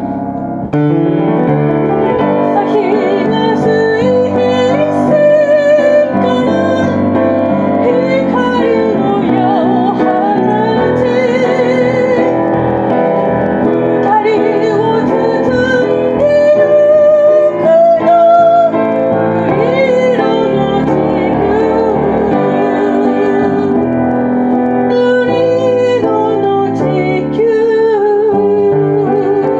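Piano accompaniment with a voice singing over it, the long notes held with a wavering vibrato: a piano-and-vocal cover of a pop ballad.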